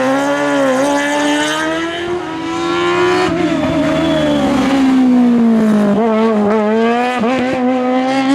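Competition car engine at high revs, flat out. Its pitch sags and climbs as the throttle is worked, with brief jagged breaks near the end like quick gear shifts or lifts.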